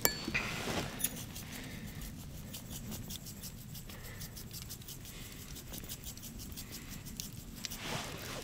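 A glass spice shaker clinks sharply once as it is picked up off the wooden board, then is shaken over a raw steak: a light, fast ticking patter of grains and the shaker's rattle. A brief louder rustle comes near the end.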